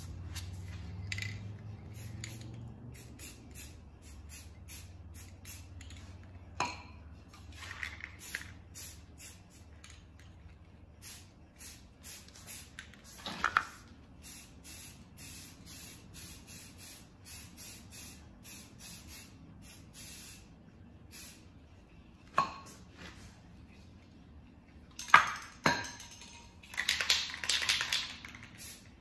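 Rust-Oleum camouflage aerosol spray paint hissing in many short bursts, with a longer spray of about two seconds near the end. A few sharp metallic clinks of the cans being handled are heard.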